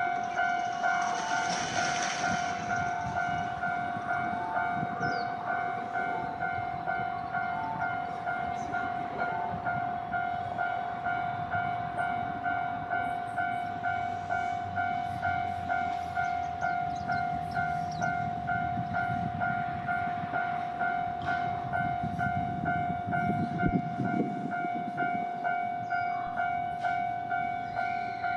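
Japanese railway level-crossing warning bell ringing steadily, an even two-tone electronic ding about twice a second. A low rumble swells briefly about 23 seconds in.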